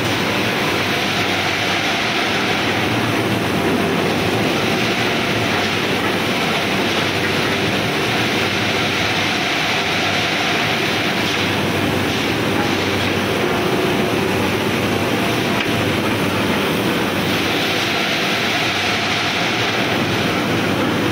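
Hot steel rolling mill running: a loud, steady machine din with a low hum as glowing bars move through the roll stands and along the roller tables.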